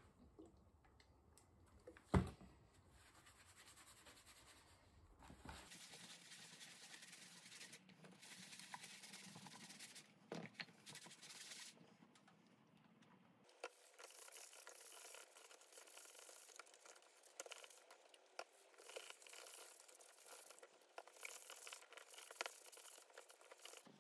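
Sponge scrubbing leather cleaner over a leather axe-head sheath: a faint, rustling scrub in on-and-off stretches with small clicks, and one sharp knock about two seconds in.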